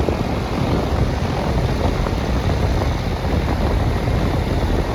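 1992 Janitrol central air conditioner's outdoor condenser unit running with a steady, even whoosh of its fan and compressor.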